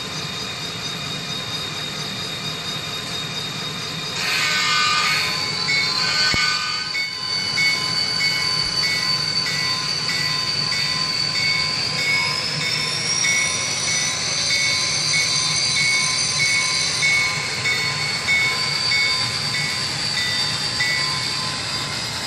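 Soundtraxx digital sound decoder playing diesel locomotive sounds through a tiny sugar-cube speaker in an HO-scale Athearn GP35 model: the engine sound runs steadily, a horn blast sounds about four seconds in, and a high whine rises in pitch around twelve seconds in as the engine revs up.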